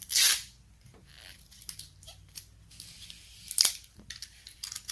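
Plastic toy packaging being torn open and crinkled by hand. There is a loud rip at the start and another sharp one about three and a half seconds in, with small rustles and clicks between.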